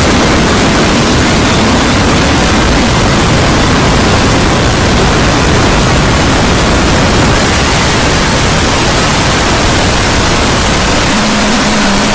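Very loud, harsh, steady static-like noise spread across all pitches, with no pauses. About eleven seconds in, a steady low hum joins it.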